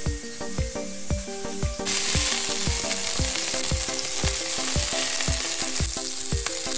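Minced-meat-and-potato patties frying in oil in a pan, a dense sizzle that starts abruptly about two seconds in. Background music with a steady beat runs under it.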